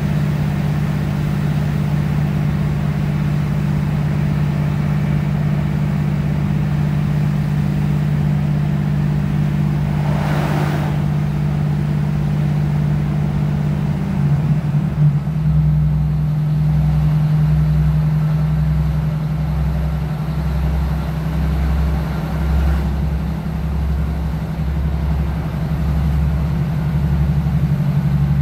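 Inside the carriage of a moving British Rail Class 156 diesel multiple unit: the steady low drone of the underfloor six-cylinder Cummins diesel engine together with running noise. A brief rushing noise comes about ten seconds in. About halfway through, the engine note shifts and a low pulsing beat, roughly one a second, sets in.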